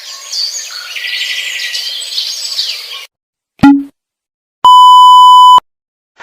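Birds chirping and singing for about three seconds, then a short falling 'bloop' sound effect, then a one-second electronic beep held on one steady tone.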